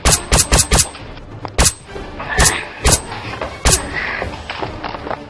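Dubbed gunshot sound effects: four quick sharp shots within the first second, then four more single shots spread over the next three seconds.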